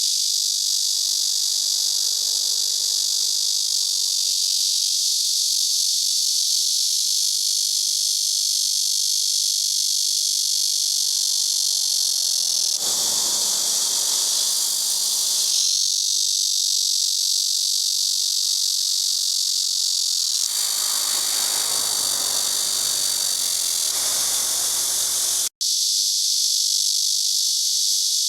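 Chorus of many blackish cicadas (Cryptotympana atrata, 말매미) singing together: a loud, continuous shrill buzz that holds steady, cutting out for a split second near the end.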